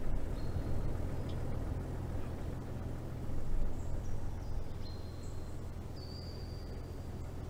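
Steady low rumble of a vehicle driving slowly, heard from inside the cabin. A few faint, short, high whistling tones come and go in the second half.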